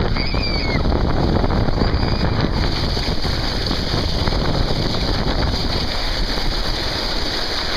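Steady rush of water-slide water under a moving inner tube, with wind buffeting the microphone.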